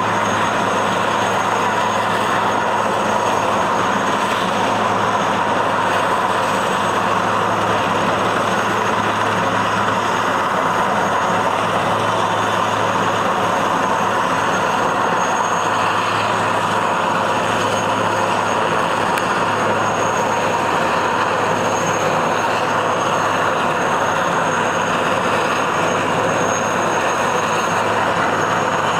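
Military helicopter hovering close by: a steady, loud rotor and engine noise that does not let up.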